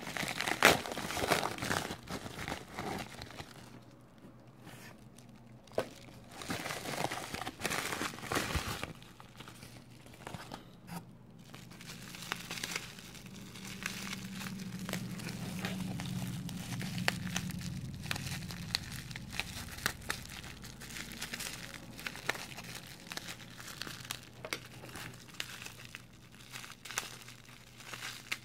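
Plastic poly shipping mailer crinkling and rustling as it is handled and torn open, in irregular crackles that are busiest over the first few seconds.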